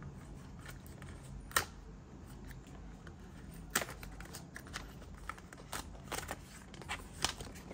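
Cardboard sleeve and plastic case of a silicone ice pop mould set being handled and opened: light rustling with sharp clicks and taps, one about a second and a half in, then a run of them from about four seconds in.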